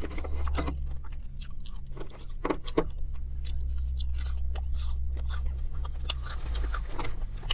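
Close-miked chewing and biting of McDonald's chicken nuggets and fries, with scattered crunches and mouth clicks, over a steady low hum inside a car cabin.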